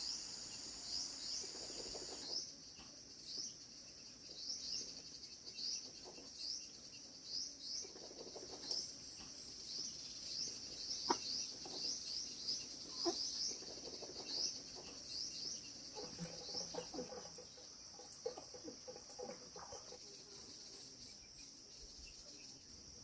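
Rural outdoor ambience: a steady high insect drone with a bird giving short repeated chirps, about one or two a second, and chickens clucking, most around two-thirds of the way through, plus a few sharp clicks.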